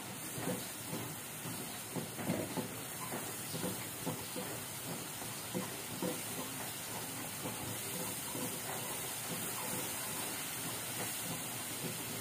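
Blended shallot and garlic paste sizzling in oil in a nonstick wok as it is sautéed until fragrant, with a spatula scraping and tapping against the pan at irregular moments as it is stirred.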